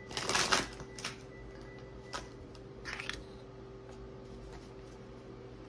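Tarot cards being handled and shuffled: a brisk rustle of cards at the start, a couple of light taps, and another short rustle about three seconds in as a card is laid down on the wooden desk.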